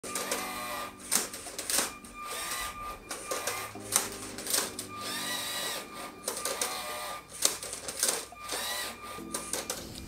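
LEGO SPIKE Prime motors of a Rubik's cube–solving robot whining up and down in short runs as the arm tips the cube and the turntable turns it. Sharp plastic clacks come in between as the cube and the arm knock into place.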